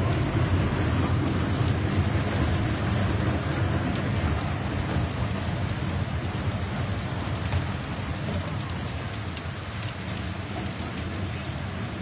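Heavy rain pouring down onto a street, a dense steady hiss, with a low rumble underneath that slowly fades.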